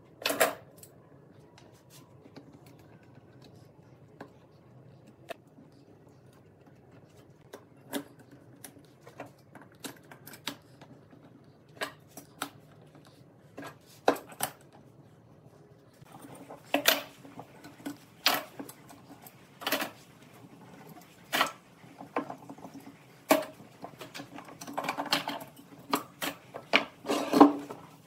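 Metal bar clamps being fitted and screwed tight around a glued stack of wooden panels, with wood pieces set in place: scattered clicks and knocks of metal and wood. The knocks are sparse at first and come more often and louder in the second half.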